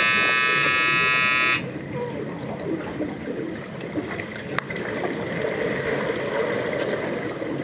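Underwater hockey referee's underwater buzzer sounding one steady electronic tone, heard through the water, the signal that halts play; it cuts off suddenly about a second and a half in. After it comes the even, churning underwater noise of players finning and splashing, with scattered faint clicks.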